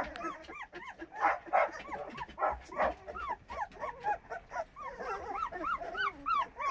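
A litter of young puppies yipping, whimpering and giving small barks as they play-fight, a rapid string of short rising-and-falling cries. There are a few louder barks in the first three seconds.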